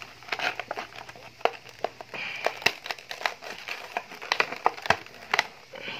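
Clear plastic blister packaging crinkling and crackling as it is handled and worked open, with irregular sharp clicks and snaps.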